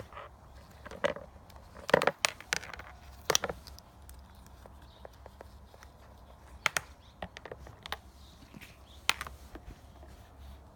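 A scattering of irregular clicks and knocks, as wires, connectors and small parts of a KTM dirt bike's kill-switch wiring are handled, over a faint steady low hum.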